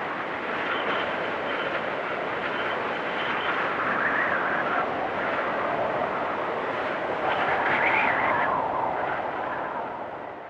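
Storm wind blowing in gusts with a whistling howl, swelling about four seconds in and again near eight seconds, then easing off near the end.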